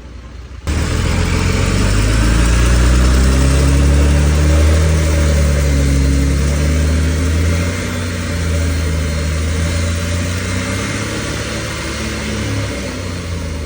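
Heuliez GX 437 bus engine running loud and rough, with a tractor-like sound. It cuts in abruptly under a second in, and its pitch rises and falls as the engine works, easing slightly toward the end.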